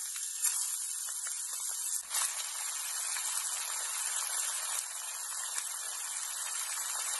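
Seasoned chicken pieces frying in olive oil in a stainless steel pot: a steady sizzle with faint crackling.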